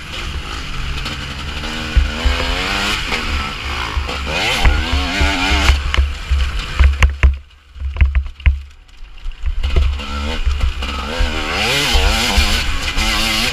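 Two-stroke TM 250 EN dirt bike revving hard and changing gear, its pitch rising and falling again and again, with wind rumble on the microphone. About seven seconds in the engine goes quiet for about two seconds, with a few knocks, then revs up again.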